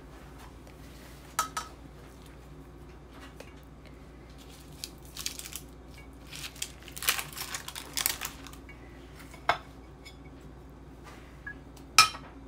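Metal serving tongs and a fork scraping and clinking against a baking dish as pieces of baked breaded chicken are lifted out. The scrapes and clinks come scattered, busiest around the middle, with the loudest single clink near the end.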